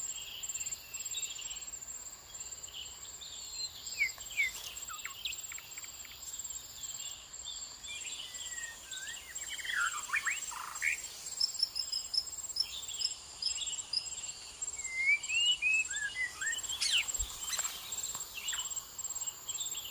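Small birds chirping in short, sweeping calls over a steady, high-pitched insect trill, the chirping busiest about halfway through.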